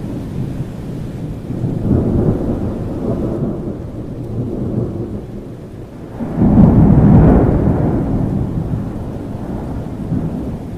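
Thunderstorm: continuous low thunder rumbling over rain, with a louder peal of thunder starting about six seconds in that swells quickly and then dies away slowly.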